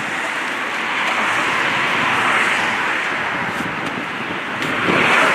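Steady rushing noise of road traffic, swelling slightly near the end.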